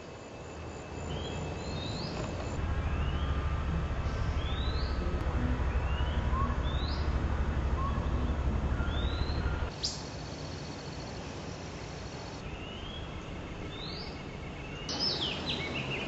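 A songbird repeating a short, rising whistled note about once a second, with a quick run of several notes near the end. A low rumble sits under the first half.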